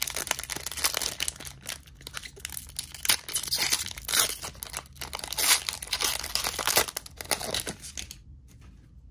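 Trading card booster pack wrapper being torn open and crinkled by hand: a dense, crackling rustle with sharp crackles that stops about eight seconds in.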